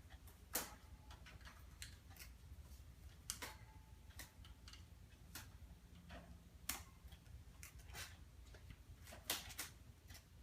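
A small bird splashing in a bird bath: a string of short, irregular splashes and flicks of water, with four louder splashes about three seconds apart.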